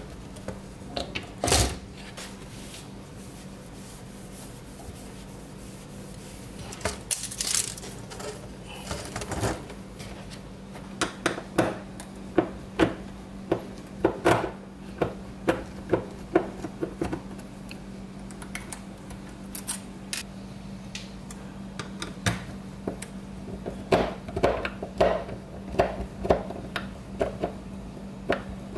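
Picture frame set down and worked on with a hand screwdriver: short clicks, knocks and scraping as screws are driven through a metal hanging ring into the frame's hardboard backing. The clicking comes thicker and more regular about halfway through.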